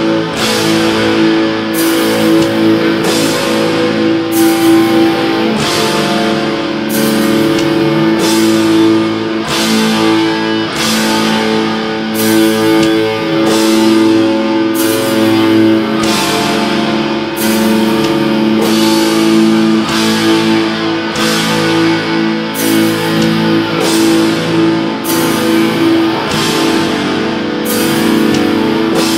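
Black metal band playing live: distorted electric guitars holding dense, sustained chords over drums, with a splash of cymbal roughly once a second.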